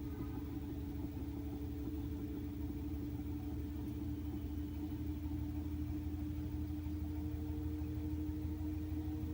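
Toshiba AW-DG14WAG washing machine in its spin-dry cycle: a steady low rumble with a motor hum that rises slightly in pitch as the drum speeds up. The owner reports the machine shaking and making an abnormal noise while spinning.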